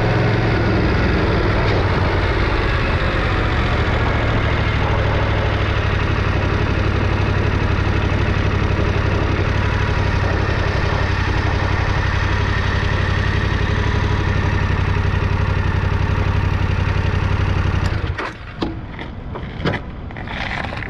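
Yamaha Tenere 700's parallel-twin engine running steadily at low revs, then shut off abruptly about 18 seconds in, followed by a few clicks and knocks.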